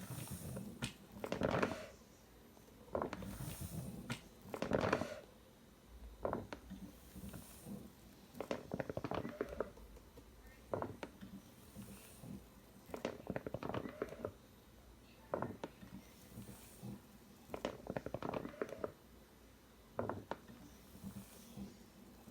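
Homemade mechanical ventilator prototype cycling: its motor-driven mechanism runs in a burst of about a second and a half, then makes a shorter sound a couple of seconds later. The pair repeats steadily, about every four and a half seconds, like a breathing rhythm.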